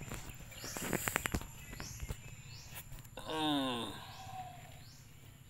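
Outdoor rural ambience with faint chirps repeating about once a second, a few sharp clicks of the marang fruit being handled about a second in, and a short falling voice-like call a little past the middle.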